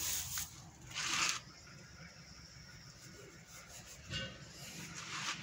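Powdered feed additive being scooped and poured into a stainless steel bowl on a digital scale: a short hissing pour about a second in, then quieter rustling and scraping.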